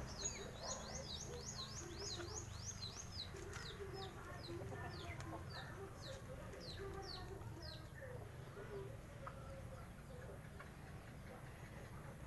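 Faint farmyard birds: a rapid run of short, high, downward-sliding chirps that thins out and stops about two-thirds in, over low, irregular chicken clucking.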